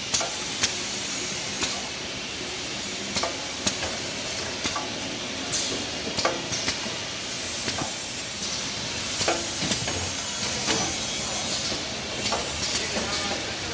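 Tissue roll bundle packing machine running: a steady hissing machine noise with irregular sharp clacks and knocks from its conveyors and pusher mechanisms, about one to two a second.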